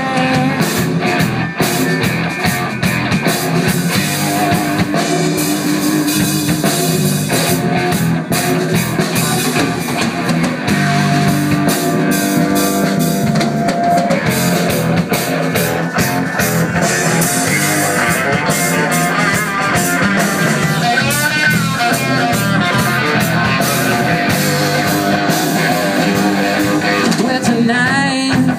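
Live blues-rock band playing loud and steady: electric guitar, electric bass and a Yamaha drum kit, with a lead line of wavering, bending notes.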